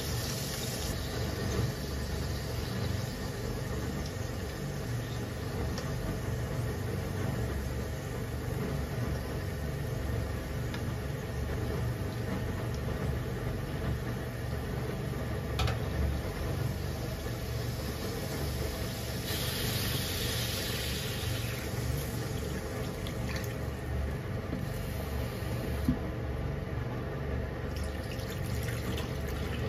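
Chicken pieces sizzling in oil in a nonstick frying pan over a steady low hum. About halfway there is a single click as the pieces are turned with tongs. Near the end water is poured into the pan and the sizzle dies down.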